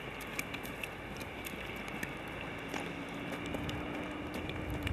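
Footsteps crunching and squeaking in snow, a run of short irregular crunches, with a faint steady hum coming in about halfway through.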